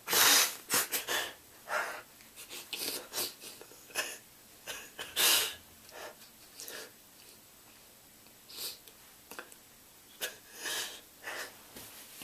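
A man breathing heavily in pain: noisy, wheezy breaths in and out. The strongest comes right at the start and another about five seconds in, with softer breaths between.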